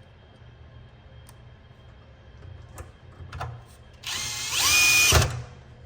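Electric screwdriver driving a retaining screw: after a few light handling clicks, its motor whine starts about four seconds in, rises in pitch, holds steady, and cuts off suddenly after about a second.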